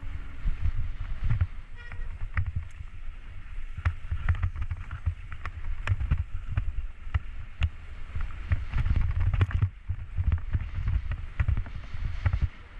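Wind buffeting the microphone of a camera riding downhill over snow, a low uneven rumble broken by frequent knocks and scrapes as the rider bumps over the tracked surface.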